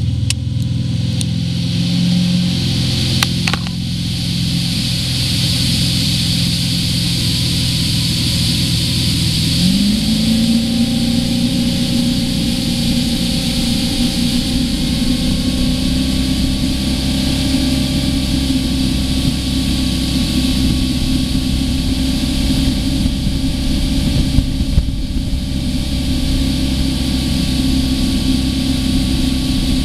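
Tow boat's engine pulling a barefoot water skier, running steadily, then rising in pitch about ten seconds in and holding at the higher speed. A steady rush of wind and water runs underneath.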